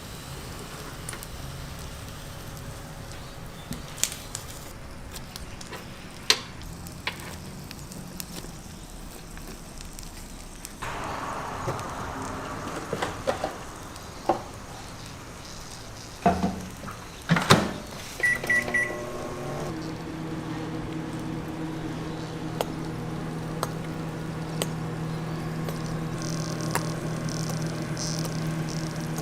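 Microwave oven handled: scattered knocks and a few loud clunks, then a quick run of keypad beeps about eighteen seconds in, after which the oven starts running with a steady hum.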